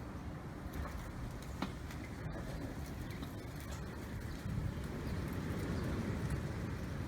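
Strong wind rumbling and buffeting against the microphone, with faint scattered ticks; the gusts grow stronger about halfway through.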